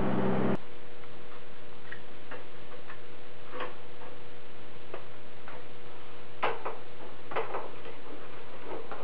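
Wrench on an aluminium AN hose-end fitting, screwing it onto braided hose clamped in a vise: irregular sharp metallic clicks, a few louder ones, over a steady hum.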